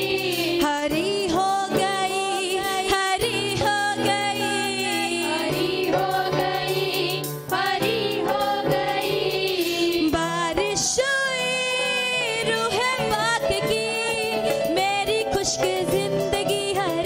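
Group of female voices singing a Hindi Christian worship song into microphones, with steady instrumental accompaniment underneath.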